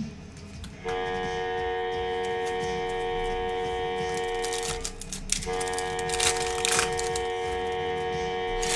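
A horn-like chord sounds in two long, steady blasts of about four seconds each, with a short break between them. Under it, the foil wrapper of a trading-card pack crinkles and tears as it is opened, loudest in the second half.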